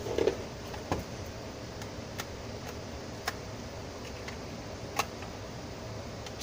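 Soft knock as the metal-and-plastic lid of an Intel NUC mini PC is set down, then a handful of sharp single clicks as cable plugs are pushed into its rear ports, the loudest near the end, over a steady hiss.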